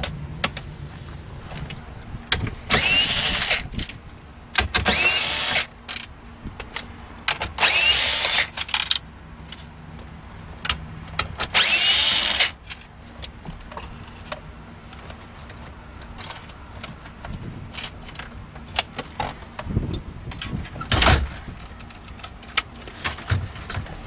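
Cordless drill/driver running in four short bursts of about a second each, backing out the screws that hold the factory radio in the dash. Scattered clicks and knocks follow as the loosened parts are handled.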